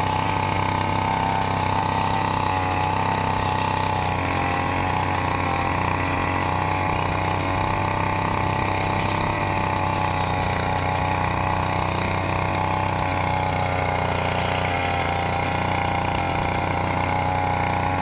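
Small petrol engine on a wheeled frame running steadily at high speed, driving a long shaft to a rotary tiller head whose tines churn through dry soil.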